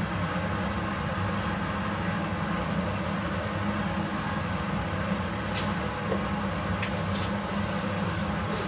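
A steady low mechanical hum, with a few faint light ticks in the second half.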